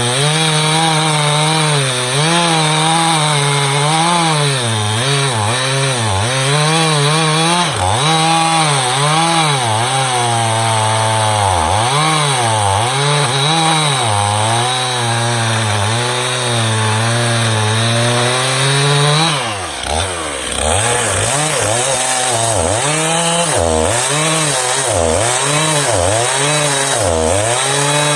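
Stihl MS291 two-stroke chainsaw at high revs crosscutting a thick hickory firewood block, its engine note wavering up and down as the chain loads in the hard wood. About twenty seconds in, the pitch and level drop briefly before the saw revs back up and carries on cutting.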